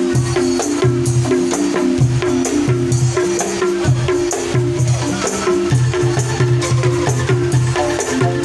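Angklung ensemble playing a tune: tuned bamboo rattles shaken in rhythm, each note with a rattling edge, over repeated low bass notes.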